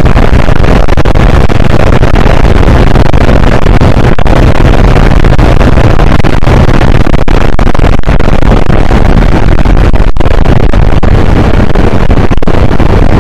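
Yamaha YBR-Z's 125 cc single-cylinder four-stroke engine running steadily at road speed, mixed with heavy wind rush on the handlebar-level microphone. The sound is loud and constant, close to overloading the recording.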